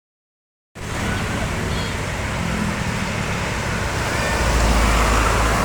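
Road traffic noise that starts suddenly about a second in, with a low engine rumble growing louder in the second half as a heavy vehicle, likely a tour bus, approaches. A few faint whistling pitch glides are heard over it.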